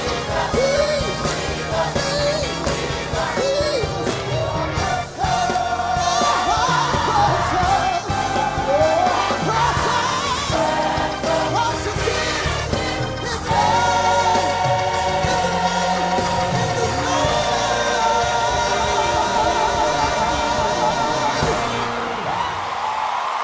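Large gospel mass choir singing with a solo voice and instrumental backing; from about halfway through, the choir holds one long sustained chord.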